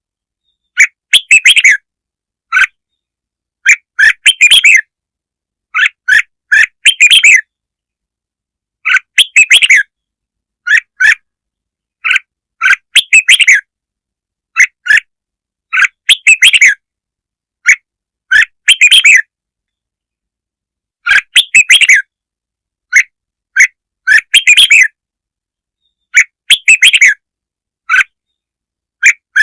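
Red-whiskered bulbul song: short, bright warbled phrases, one every second or two, with clean gaps between them. This is a lure song (kích mồi), played to draw in other bulbuls.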